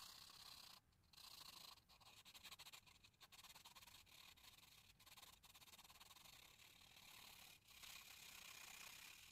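Faint scratching of a charcoal pencil shading on paper, with a few brief pauses between strokes.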